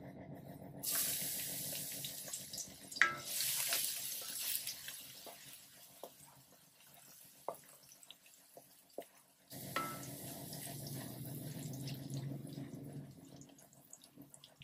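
Minced garlic sizzling in hot oil in a stainless steel wok, stirred with a wooden spatula. The sizzle starts suddenly about a second in, with a sharp knock of the spatula against the pan about three seconds in; it dies down, then starts up strongly again near ten seconds in and fades.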